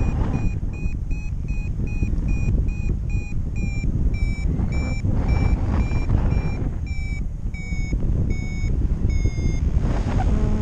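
Paraglider variometer beeping in short, quick repeated tones over wind rushing on the microphone, the sign of climbing in lift. In the second half the beeps come slower, longer and a little lower in pitch, as the climb weakens.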